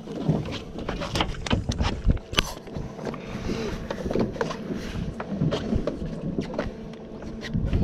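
A freshly landed redfish flopping and slapping on a fiberglass boat deck while it is handled, giving a run of irregular knocks and scrapes over a steady low hum.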